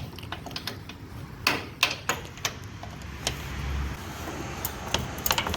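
Irregular metallic clicks and knocks of a 1/4-inch socket wrench with a 13 mm socket being worked on a Jeep Wrangler hood-latch bolt.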